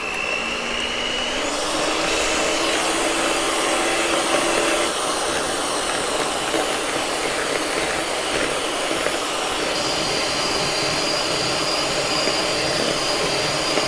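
Electric hand mixer running steadily, its beaters whipping eggs and sugar in a plastic bowl. The motor's whine rises as it spins up at the start, then holds, and a higher whine joins it a little past halfway.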